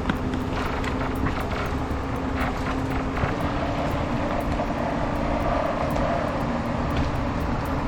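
Heavy vehicle engine running steadily, with scattered clicks and knocks.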